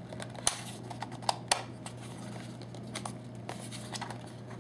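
Plastic clicks and taps as a belt clip is worked onto the back of an RCA RP-1820 portable cassette player's plastic case: four sharp clicks in the first second and a half, then lighter handling ticks.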